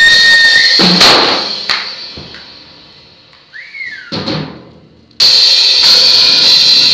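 Stage pyrotechnic effects firing with a rock band on stage: a steady high tone ends in a loud bang about a second in that rings away, a smaller bang follows, and about five seconds in a sudden loud burst of sound sets in and holds.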